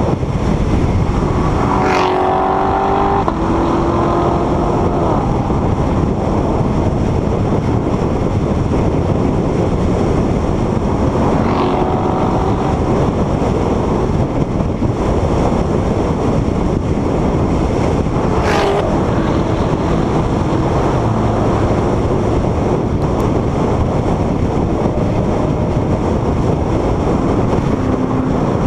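Steady wind and road noise of a Corvette cruising at highway speed, with three brief swishes about two, twelve and eighteen seconds in.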